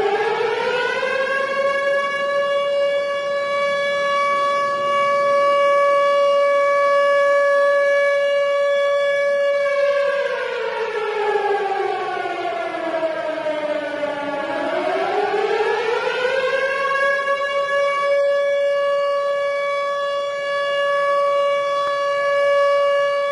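Outdoor warning siren giving a long wail: it winds up to a steady high tone and holds it. About ten seconds in it winds down for several seconds, then winds back up and holds the tone again.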